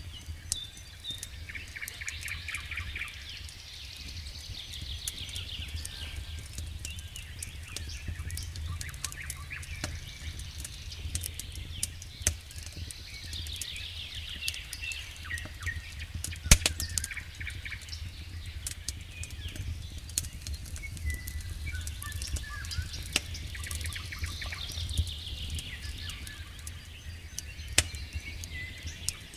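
Wood campfire crackling with scattered sharp pops and one loud snap about 16 seconds in, over a steady low rumble. Songbirds sing repeated trilled phrases in several spells.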